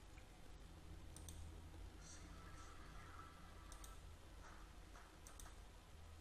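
Near silence over a low steady hum, with a few faint computer mouse clicks spread through: the cursor clicking on a media player's seek bar.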